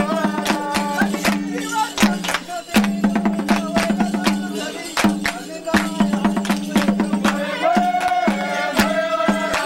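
A group singing a traditional song, with sharp hand claps keeping the rhythm throughout.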